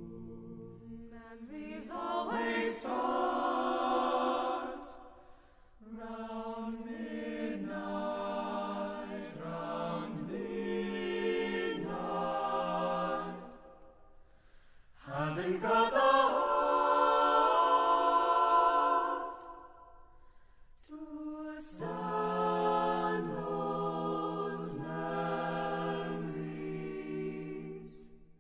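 Mixed-voice a cappella ensemble singing a slow jazz ballad in close harmony. It comes in four phrases with brief pauses between them; the third, opening with an upward swoop, is the loudest.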